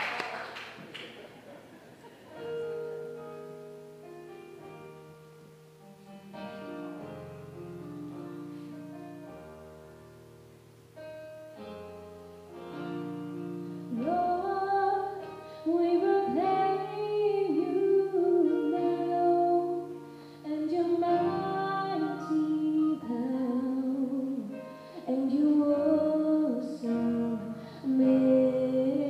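Applause fades out and a keyboard plays held chords as a quiet introduction. About halfway through, women's voices of a gospel choir come in singing over the accompaniment.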